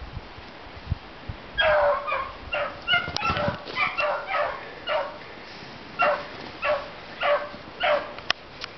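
Dogs giving tongue as they run a hare on its trail: a rapid string of short, high-pitched yelping barks starting about a second and a half in, with more than one voice overlapping at times.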